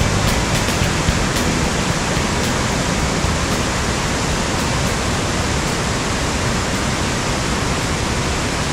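Waterfall water falling and rushing, a loud, steady, even roar.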